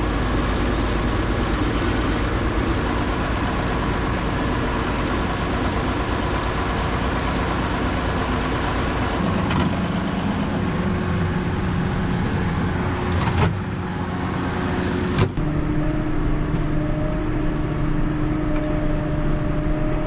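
JCB Fastrac tractor engine running steadily. Its note changes abruptly a few times, with two short knocks about two-thirds of the way in.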